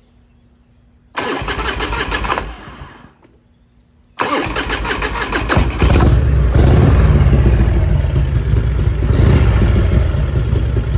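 1994 Harley-Davidson Fat Boy's 1340 Evolution V-twin being started warm without the choke, on new spark plugs and wires: a first try about a second in cranks briefly and dies away, then a second try about four seconds in catches and the engine runs loud and steady at idle.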